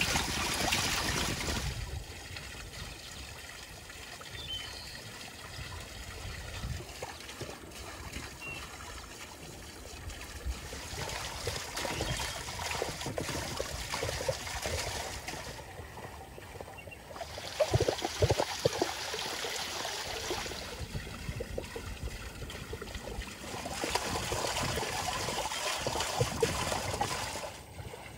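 Water running from a stone well's spout and splashing into a basin as raw chicken wings are rinsed by hand under it. The flow grows louder and softer in stretches, with a few sharper splashes partway through.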